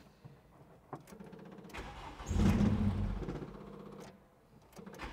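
Cold start of a VW Caddy Mk1's 16-valve four-cylinder engine on Weber carburetors. After a click, the engine is cranked and catches about two seconds in, runs briefly, then dies away before the next attempt, as a cold carbureted engine does.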